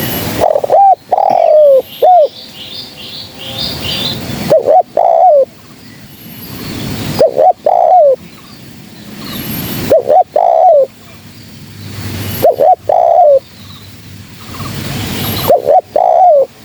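Spotted dove (terkukur) cooing: six repeated phrases, each a few short low coos with a longer falling note in the middle, about every two to three seconds. Faint higher chirping from another bird between the first two phrases.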